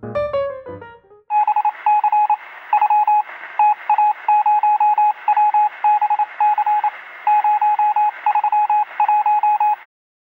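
Piano music ends about a second in, then electronic beeping with a telephone-line quality: trains of rapid short two-pitched beeps, repeating irregularly over a steady hiss for about eight seconds, cutting off suddenly near the end.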